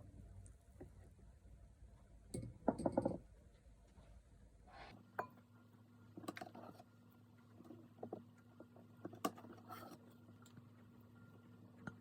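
Faint kitchen handling noises: scattered light taps and clinks of utensils and containers, with a louder rattling cluster about two and a half seconds in.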